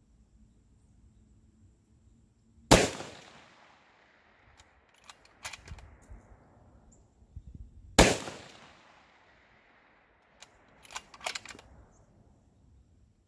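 Two shots from an MPA Ultra Lite bolt-action rifle in 6.5 PRC, about five seconds apart, each a sharp crack that echoes away over a second or two. A few smaller sharp clicks follow each shot.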